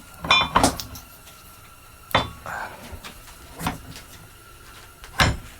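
Steel tamper bit clanking against a Hercules jackhammer as it is fitted into the tool: about half a dozen sharp metal clanks and clinks, a few of them ringing briefly.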